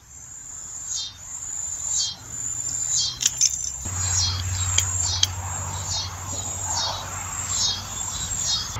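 Insects calling in a steady rhythm, high-pitched pulses that swell and fade about once a second. A few sharp clicks come around three to five seconds in, and a low steady rumble joins about four seconds in.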